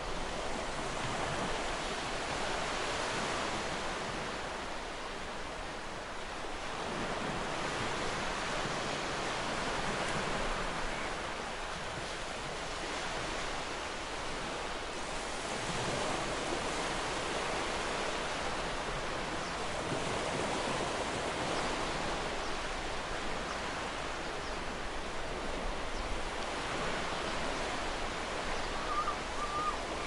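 Ocean surf: a steady wash of breaking waves that swells and eases gently, with a brief bird call near the end.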